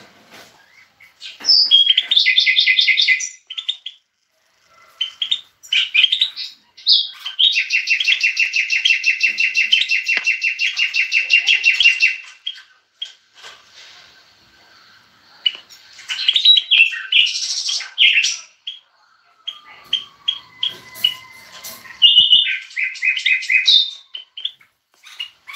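Caged finches singing: bursts of fast trills and twittering, including one long, even trill of about four seconds, with scattered chirps in between.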